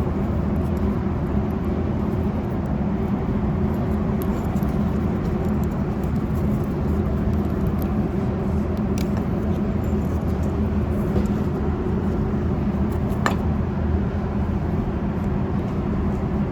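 Steady low rumbling hum with a few faint clicks.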